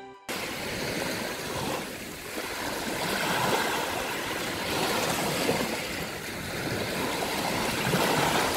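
Sea surf washing onto a sandy shore: a steady rush of waves that swells and eases every two seconds or so, cutting in suddenly just as a plucked-string tune ends.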